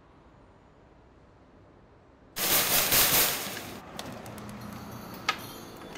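Rapid banging on a metal security storm door, rattling it loudly for about a second and a half, starting a little over two seconds in. Before it, quiet room tone; after it, steady outdoor background hiss with a few light clicks.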